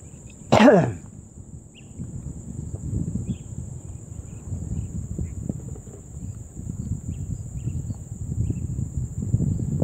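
Wind buffeting the microphone in a gusty low rumble, under a steady high insect drone with scattered faint chirps. About half a second in comes one brief loud cry that falls sharply in pitch.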